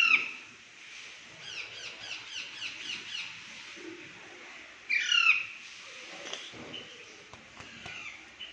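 Pet parrot squawking, with two loud calls about five seconds apart. Between them is a quick run of short chirps at about five a second, and a few softer calls come near the end.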